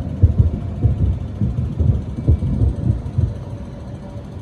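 Distant fireworks bursting in quick succession: a dense run of low booms and thuds that thins out after about three seconds.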